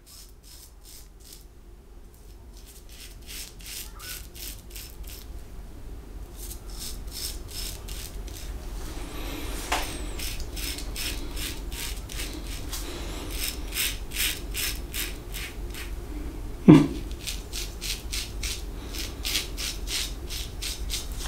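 Aluminium double-edge safety razor (Focus Tritok Concave) scraping through three-day stubble under lather in quick short strokes, several a second, in runs. One brief, louder thud about three-quarters of the way through.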